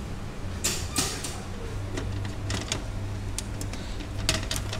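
Irregular sharp plastic clicks and knocks from the clear flip-up door of a vending-machine locker compartment being released and lifted while the packet inside is taken out, over a steady low hum.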